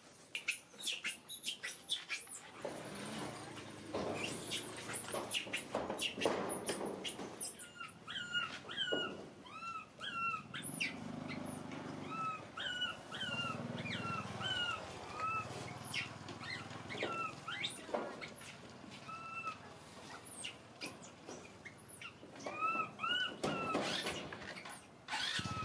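Baby macaque crying: a long run of short, arching whimpering cries. Very high, shrill squeals are heard over the first several seconds.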